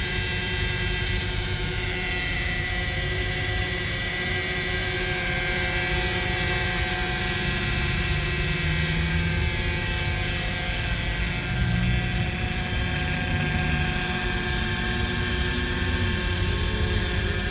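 Hirobo Sceadu radio-controlled helicopter hovering low over water: a steady whine from its rotor and drive, the pitch shifting slightly now and then, over a low rumble.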